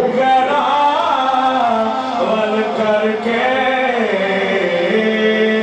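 Man singing a naat into a handheld microphone: a long, ornamented unaccompanied vocal line that bends up and down, then settles into a steady held note near the end.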